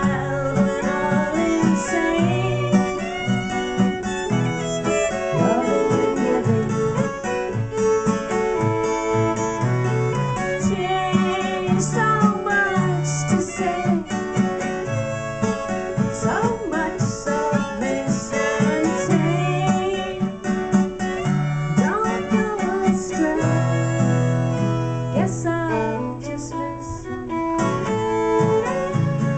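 A woman singing with her own strummed acoustic guitar, accompanied by a violin.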